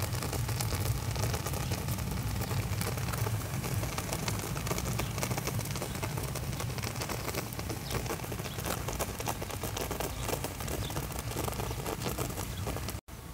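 Fine, dense crackling and patter from clay pots sealed with dough sitting in hot charcoal embers, over a steady low rumble.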